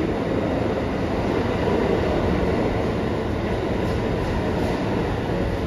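Steady noise of an R211A subway car standing at a station with its doors open.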